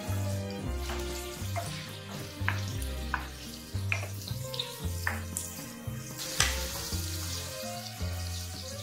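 Shrimp and sliced garlic sizzling in hot oil in a metal pan, stirred with a wooden spatula that knocks and scrapes against the pan several times, the loudest knock about six and a half seconds in. Background music with a steady bass line plays underneath.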